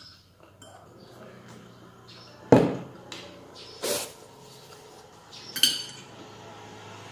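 A metal spoon and plate knocking and clinking during a meal. There are three sharp knocks, the first, about two and a half seconds in, the loudest. The last, near the end, has a short metallic ring, and faint scraping and handling noise comes in between.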